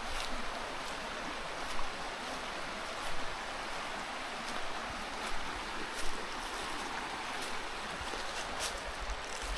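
Running water, a steady rush, with a few short sharp clicks scattered through it.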